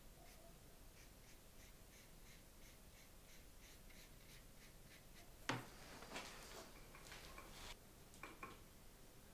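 Fine paintbrush stroking watercolour onto a printed paper sheet, faint soft strokes about three a second. About five and a half seconds in comes a sharp knock, then brief rustling and clatter, with two small clicks near the end.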